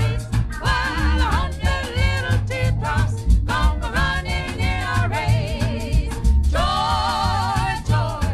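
Recorded soul-pop song: a vocal group singing over a band, with a steady bass and drum beat. Long held, wavering notes come in over the second half.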